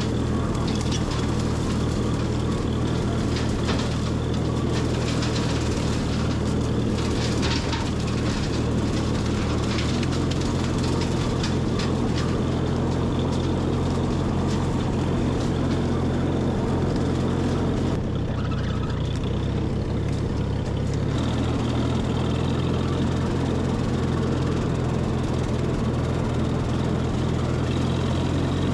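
Allis-Chalmers tractor engine running steadily with the mower deck engaged, mowing brush and leaves along a woodland trail. The engine note shifts about ten seconds in.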